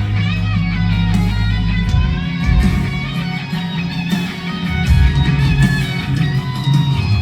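Live country-rock band playing an instrumental break: an electric guitar lead with bending notes over bass and drums.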